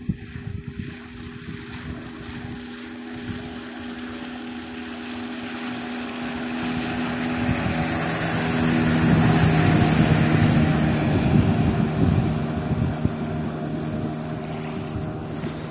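Hidea 9.9 hp outboard motor running with a small boat under way, water rushing and wind on the microphone. The engine note grows louder toward the middle and eases a little near the end.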